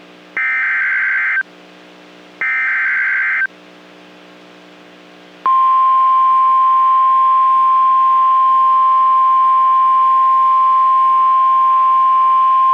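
NOAA Weather Radio SAME (Specific Area Message Encoding) header: the last two of three one-second bursts of harsh, buzzy digital data, about a second apart. About five and a half seconds in, the steady 1050 Hz Warning Alarm Tone starts and holds. Together they signal that a new warning broadcast is about to be read.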